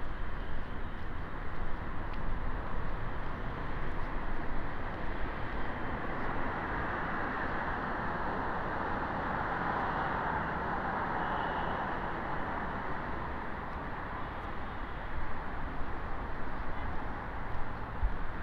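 Steady street traffic noise, with a vehicle passing that swells and fades around the middle.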